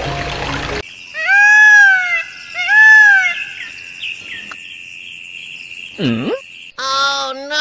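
Water trickling stops just under a second in. Then come two loud arching animal calls about a second each, over a steady thin high tone, and a lower drawn-out call near the end.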